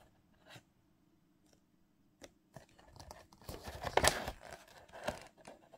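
Paper instruction sheet rustling and crinkling in the hand as it is moved and turned over. It is loudest about four seconds in, after a quiet start with a few faint clicks.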